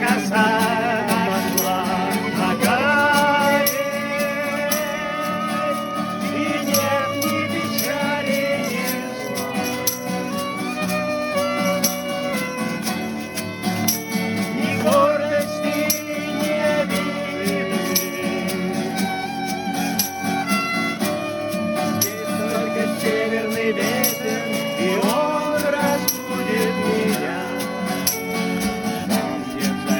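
Instrumental passage of a song: guitar with a shaker rattling under a melody line that slides between notes.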